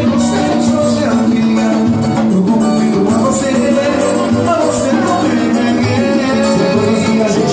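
Latin American music playing, with singing over the instruments.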